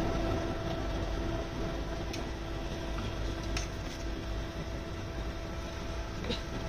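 A few light clicks of steel tongs against the corn cobs and the clay pot as boiled cobs are lifted out of the water, over a steady background hiss and hum.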